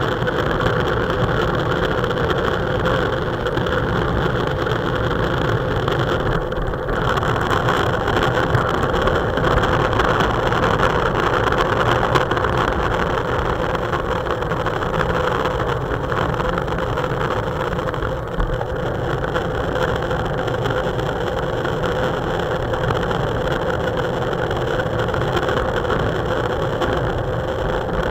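Steady rush of wind buffeting a handlebar-mounted camera on a road bike riding at speed, mixed with the rumble of the tyres on asphalt.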